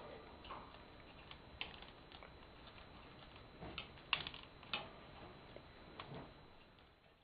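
Pet budgerigars making irregular light taps and clicks as they peck and move about, loudest about four seconds in.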